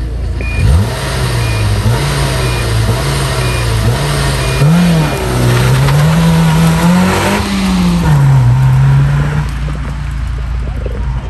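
Nissan March rally car's engine revving hard at a stage start while the start clock beeps once a second, ending in a longer beep. The car then launches and accelerates away, the engine note climbing and dropping with each gear change before fading.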